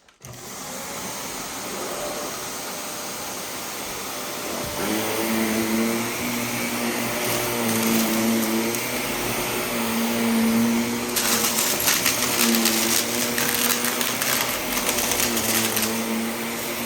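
Vacuum cleaner switched on and running over carpet; from about five seconds in its hum rises and falls in pitch as it is pushed back and forth. From about eleven to sixteen seconds in there is dense crackling as it sucks up crunchy dry debris from the carpet.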